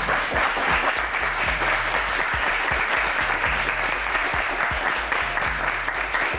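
Studio audience applauding steadily, many hands clapping at once.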